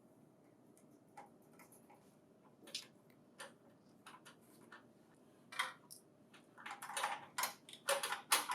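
Irregular clicks and knocks of plastic printer parts and packing material being handled. They are sparse at first and grow busier and louder in the last few seconds.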